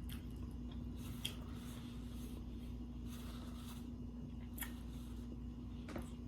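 Eating sounds close to the microphone: soft chewing and mouth clicks with a few brief rustles of food being handled, over a steady low hum.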